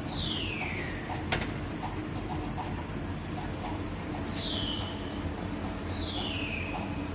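A bird's falling whistled call, given three times, each about a second long, over a steady low hum; one sharp click about a second in.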